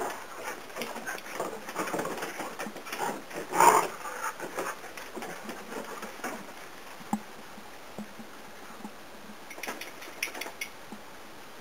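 Dogs' paws clicking and scuffing on a wooden deck as they move about, with one loud short sound nearly four seconds in. After that it is quieter, with a few more clicks near the end.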